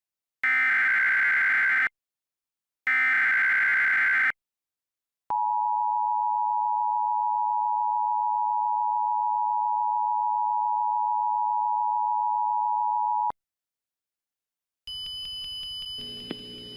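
Emergency Alert System tones: two bursts of the SAME header's digital data screech, each about a second and a half, then the steady two-tone attention signal held for about eight seconds and cut off abruptly. A quieter steady hum with thin high tones starts near the end.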